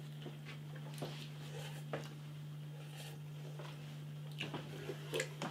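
Quiet eating sounds from a man working through a plate of instant noodles: faint scattered clicks and soft mouth noises, a little busier near the end, over a steady low hum.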